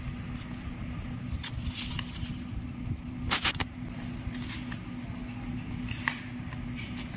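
A sheet of ruled notebook paper being folded and creased by hand, with short irregular rustles and crinkles, a brief louder cluster about three seconds in. A steady low hum runs underneath.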